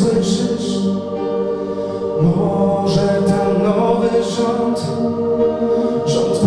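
A man singing into a microphone over a sustained musical backing.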